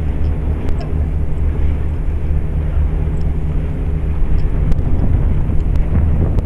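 Steady low drone of the sightseeing cruise ship's engine, with a faint rushing haze above it and a few light ticks.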